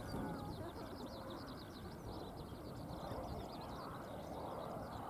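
Birds chirping continuously in quick, overlapping high calls, over a low, noisy rumble of wind or distant traffic.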